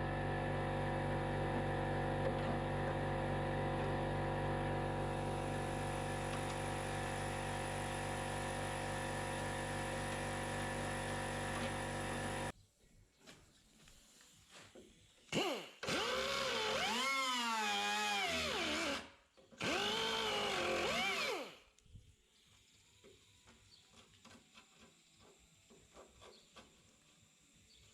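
Electric power tool, drill-like, running steadily for about twelve seconds, then two shorter runs of a few seconds each with the motor speed wavering up and down. Faint light clicks and taps follow.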